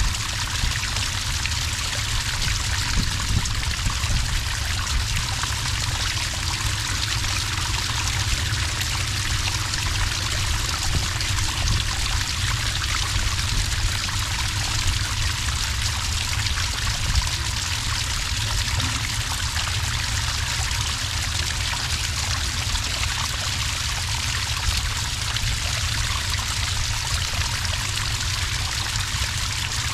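Small water cascade pouring steadily into sand, an even, unbroken trickling and splashing of water.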